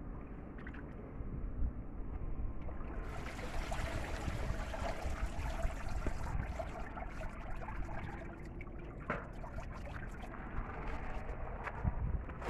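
Dried banana leaves rustling and crackling as bundles of them are handled and laid out, growing louder about three seconds in, over a low rumble of wind on the microphone.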